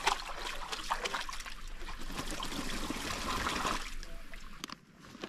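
A dog moving about in shallow lake water, splashing and trickling, with many small sharp splashes. The splashing drops away about four seconds in.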